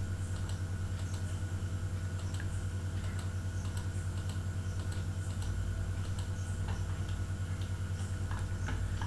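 Steady low electrical hum on the recording, with faint scattered clicks from a computer mouse and keyboard.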